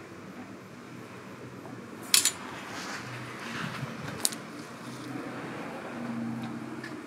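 Two sharp metallic clicks, about two seconds apart, with light clinking and rustling handling noise between them over a low steady hum.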